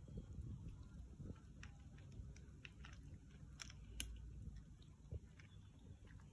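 Several cats chewing dry kibble: faint, irregular crunching clicks over a low rumble.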